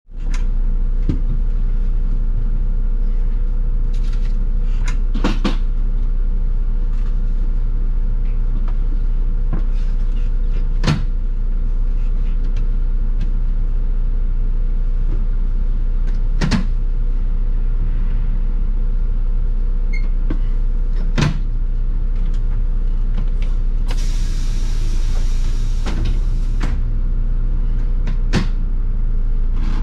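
A city bus's diesel engine running steadily, with scattered clicks and rattles. A hiss lasting about three seconds comes near the end.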